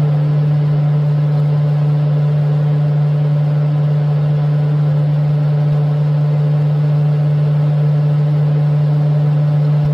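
Kitchen fan running with a steady low hum.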